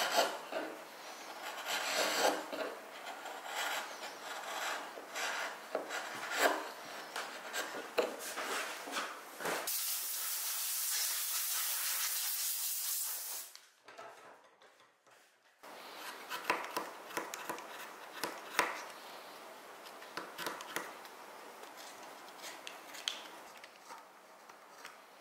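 Steel wood chisel paring thin shavings from a board edge, a run of short scraping strokes. About ten seconds in comes a steady hiss lasting about four seconds, then a brief quiet gap, then more short scraping cuts from a small knife on wood.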